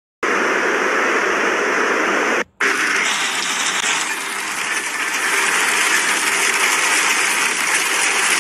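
Loud, steady hiss of heavy rain and rushing floodwater, with a brief dropout about two and a half seconds in.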